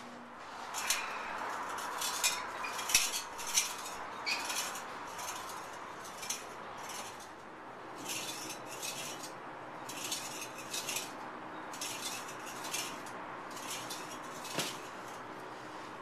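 A log rocking chair with a steel frame being rocked on gravel: short scraping and clicking noises come in bunches every second or two as the chair tips back and forth.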